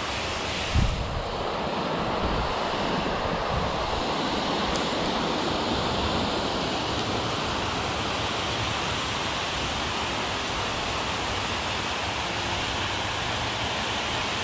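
Steady rush of water pouring over a concrete dam spillway, an even roar that does not change. A brief low thump comes about a second in.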